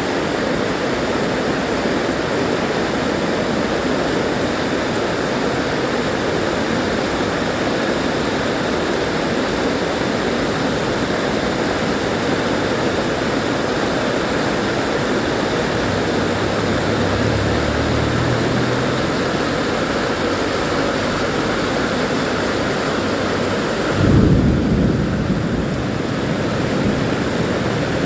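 Heavy rain pouring steadily. Near the end a sudden low rumble swells for a couple of seconds.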